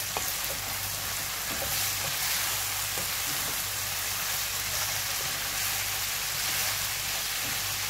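Grated potato and carrot sizzling in oil in a frying pan as they are stirred with a metal spoon, with a few light scrapes of the spoon. A steady low hum runs underneath.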